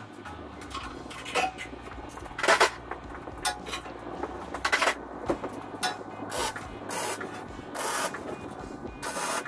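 MIG welding arc crackling in a series of short bursts, each under a second and a second or so apart: tack welds on the steel fifth wheel hitch plate.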